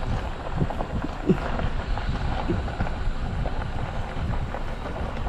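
A vehicle driving with a steady low rumble, wind buffeting the microphone, and a few short knocks in the first few seconds.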